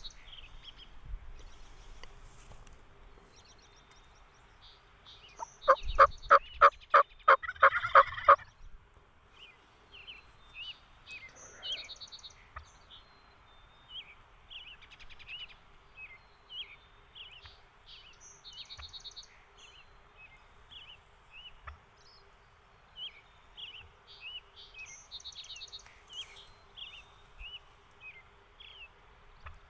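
Wild turkey tom gobbling once, loudly, about six seconds in: a rapid rattling run of notes lasting a little over two seconds. High songbird chirps come and go throughout.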